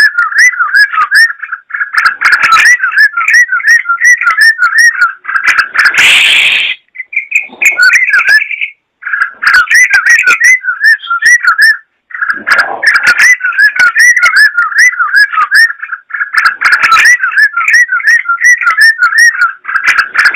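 Yellow-vented bulbul (trucukan) singing a rapid, continuous stream of chattering, warbled whistled phrases. A short loud noisy burst comes about six seconds in, and the song breaks briefly near nine and twelve seconds.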